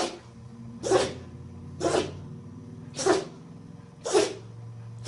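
A dog sneezing over and over, five short sharp sneezes about a second apart.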